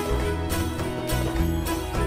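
Background music with a steady beat, with a bright percussion hit about twice a second.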